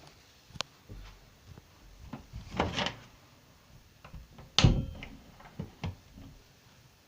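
Household knocks: a click, a short scrape, then a sharp bang a couple of seconds later, followed by a few lighter clicks.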